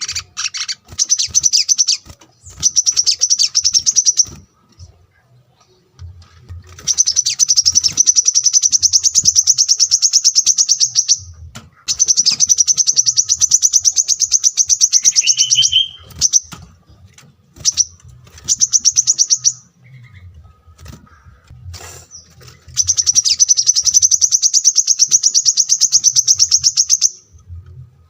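Small songbird singing long, very rapid high-pitched trills, each lasting two to five seconds with short breaks between, over a faint low hum.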